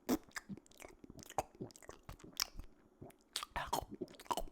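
Clicks and pops made with the mouth as a vocal sound effect: an irregular run of short, sharp clicks.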